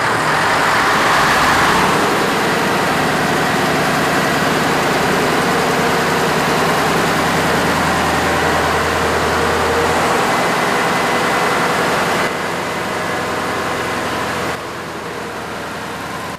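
Engine of a 100 kW standby generator set running steadily, loudest in the first couple of seconds after it has just been started. The sound drops a step in level twice near the end.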